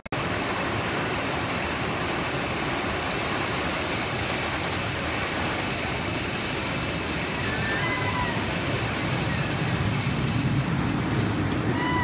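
Outdoor rushing noise with the rumble of an RMC I-Box steel roller coaster train running on its track, growing louder over the last couple of seconds. A few bird chirps come about eight seconds in and again near the end.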